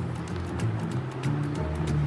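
Background music with held low notes.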